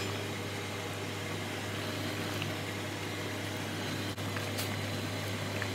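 Steady low hum with an even hiss, a constant kitchen appliance drone, with a faint tap or two about four seconds in.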